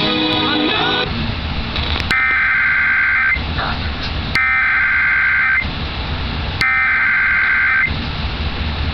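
Emergency Alert System SAME header: three identical bursts of buzzy digital data tones, each just over a second long, about a second apart. They mark the start of an EAS flash flood warning. Music ends about a second in, before the first burst.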